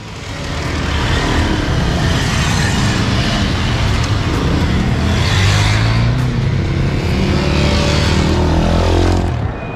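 Several motorcycles, mostly off-road dirt bikes, ride past one after another with their engines revving. The sound builds over the first second, holds steady, and fades near the end as the bikes move off.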